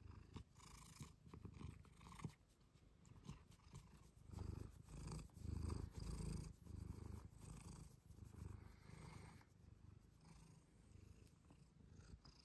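A tabby cat purring steadily and faintly as it is stroked under the chin, a sign that it is enjoying the petting. The purr swells louder in the middle.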